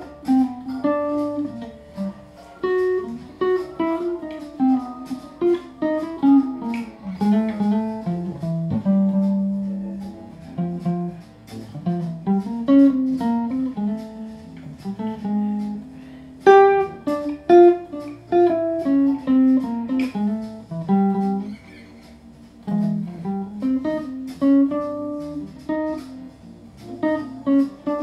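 Archtop hollow-body guitar playing a fast run of single-note melodic lines, played along to a backing track.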